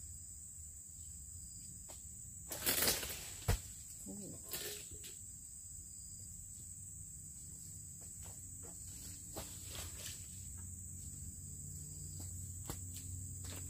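Insects chirring steadily in a high, even drone. A few brief rustles of footsteps through grass and undergrowth come about three and five seconds in, with a single sharp click between them.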